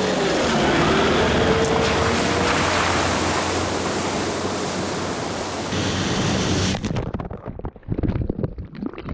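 Toyota Hilux driving through a water-filled rut: the engine note rises in the first few seconds under a dense rush of splashing water and wind noise. About seven seconds in this cuts off and gives way to quieter, uneven low thuds.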